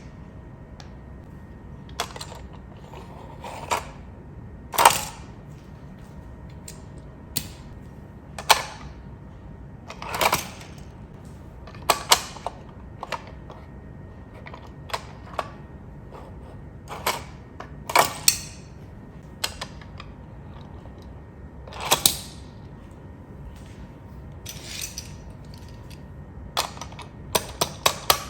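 Irregular sharp clicks and knocks, roughly one every second or two with a quick cluster near the end, over a faint steady hum.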